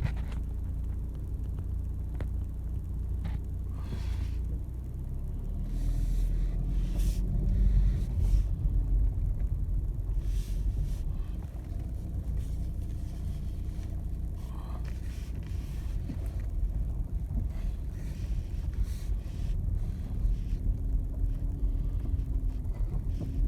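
Vehicle driving on a road, heard from inside: a steady low rumble of engine and tyres. The engine note rises and falls a couple of times, with an occasional knock or rattle.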